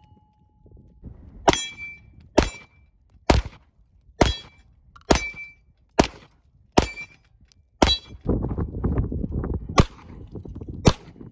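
Canik SFX Rival 9mm pistol firing ten shots at a slow, steady pace, about one a second, with a longer pause near the end. Several hits ring briefly on steel targets.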